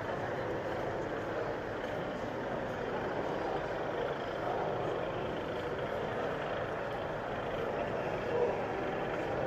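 Steady hubbub of a busy exhibition hall: many distant voices and movement blending into an even murmur, with no single sound standing out.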